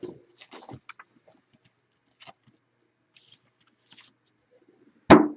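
Trading cards being handled on a table: faint scattered clicks and light rustles, with a louder sharp sound near the end.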